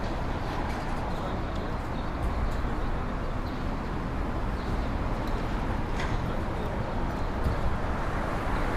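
City street ambience: a steady rumble of road traffic, with a few faint clicks.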